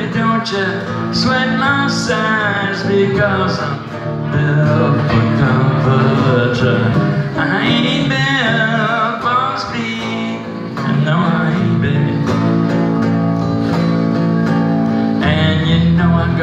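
Electric guitar blues instrumental break, played on a Flying V-style electric guitar through an amplifier, with bent lead notes over a steady low accompaniment.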